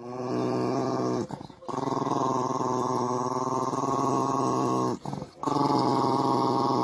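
Small dog growling in three long, steady growls, with short breaks about a second in and about five seconds in.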